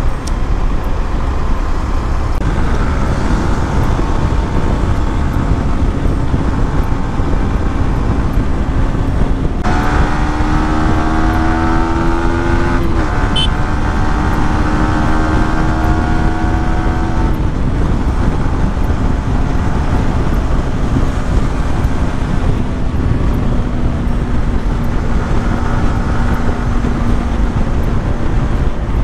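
Wind and road noise rushing over the microphone of a Yamaha sport motorcycle riding at speed, with the engine's steady note underneath. The engine note rises a little, then drops once about halfway through.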